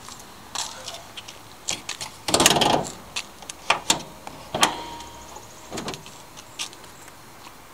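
The car's hood being unlatched and raised: a scraping rustle, then several sharp metal clicks and clunks, one followed by a brief metallic ring.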